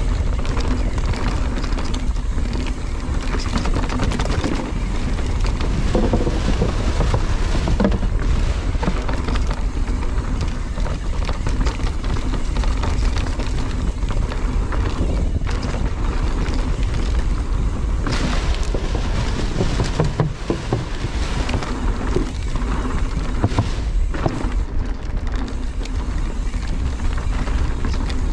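Mountain bike riding fast down a dirt trail: steady wind buffeting on the microphone, tyres rolling over dirt and leaves, and the bike rattling over bumps throughout.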